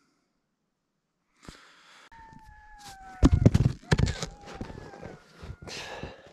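Dogs howling in long, slowly falling notes, several at once near the end. Under them a person crawls out of a snow cave: rustling of clothing and gear on snow and a run of thumps, loudest about three seconds in. The sound starts about a second and a half in.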